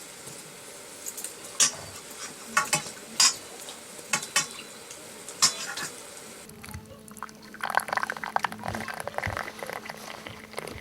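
Metal kitchen utensils clinking and knocking, a few sharp clinks every second or so, while tea is being made. About two-thirds of the way through the sound changes: a steady low hum sets in, then a dense crackling hiss like something boiling or sizzling in a pot.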